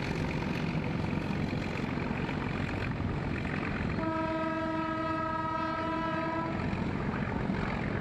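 Nilgiri Mountain Railway diesel locomotive sounding one long, steady horn blast about halfway through, lasting about two and a half seconds, over the steady running noise of the passing train.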